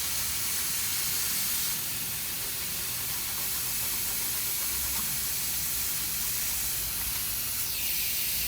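Steady high hiss of rushing air, changing slightly in tone about two seconds in and easing in its upper part near the end.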